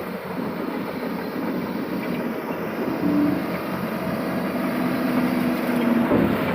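Excavator's diesel engine running, a steady mechanical drone with faint tones that swell briefly about three seconds in and again near the end.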